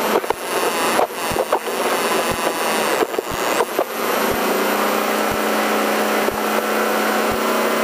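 Off-road race truck's engine running hard at speed, heard from inside the caged cab, with the rattle and knocks of the chassis over rough ground. About four seconds in the engine note settles to a steady pitch.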